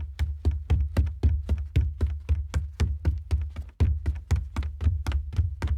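Bare feet running on a wooden floor: quick, even footfalls of about five or six a second, each a deep, soft thud with a light slap.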